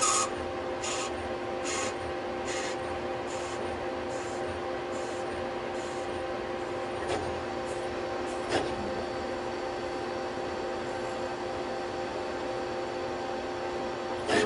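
Citizen Cincom L12 Swiss-type CNC lathe turning a brass part: a steady machine hum with cutting hiss, and a run of rhythmic hissing strokes a little under a second apart that fade out by about halfway, with a few sharp clicks later on.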